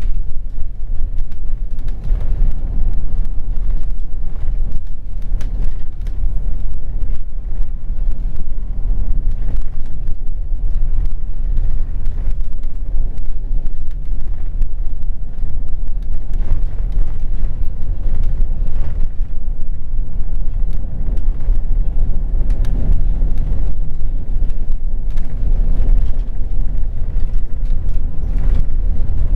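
Scania OmniLink articulated bus heard from inside the passenger cabin while driving: a steady low engine drone with road rumble, and small knocks and rattles from the body throughout.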